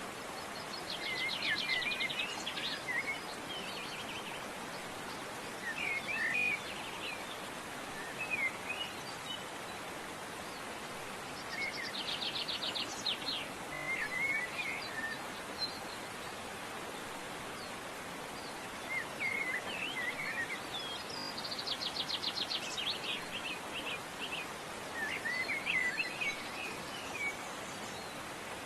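Songbirds calling over a steady hiss: a fast, high trill comes three times, about ten seconds apart, with short chirps in between.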